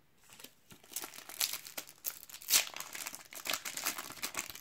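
Foil trading-card packet crinkling as it is torn open by hand: irregular crackles starting about a second in, with a few louder ones around the middle.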